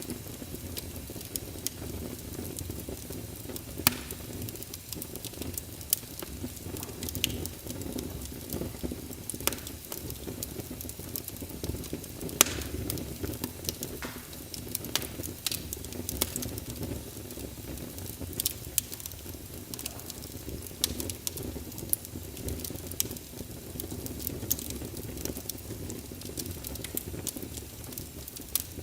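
Fireplace fire crackling: irregular sharp pops and snaps over a steady low rumble of the flames, with a few louder snaps among them.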